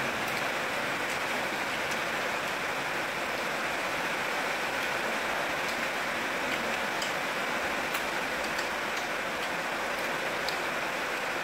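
Steady rushing noise, even throughout, with faint scattered clicks.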